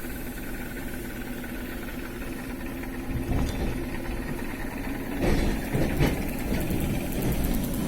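ER9M electric multiple unit train with a steady electrical hum and a few level whining tones, then a deeper rumble setting in about three seconds in and growing louder about five seconds in, with scattered knocks, as the train gets under way.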